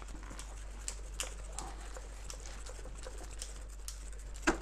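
Scattered light clicks and taps of metal parts as the steering column of a Halten RS03 electric scooter is fitted onto its base, with one sharp knock near the end as the column seats.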